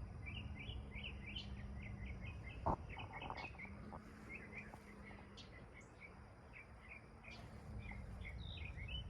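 Birds chirping outdoors, a fast continuous run of short high chirps, with a single sharp knock about a third of the way in and a faint low hum underneath.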